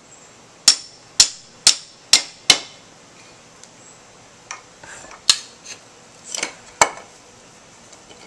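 A hammer striking the nub on the spine of a high-carbon-steel chisel utility knife, driving the blade into a piece of wood to split it. Five quick sharp strikes about half a second apart, then a few lighter, more spaced knocks.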